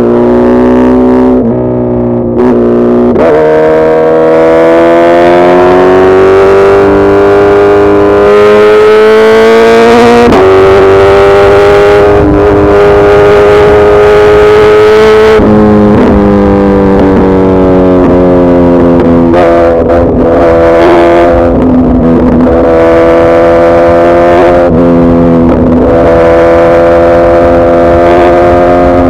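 Suzuki Hayabusa Gen3 motorcycle's 1340 cc inline-four engine running loud under throttle. Its note climbs and sags slowly, with a few sudden jumps in pitch.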